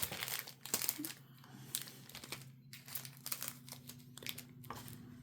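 Trading-card packaging crinkling as the foil booster packs are handled, a quiet, irregular crackle.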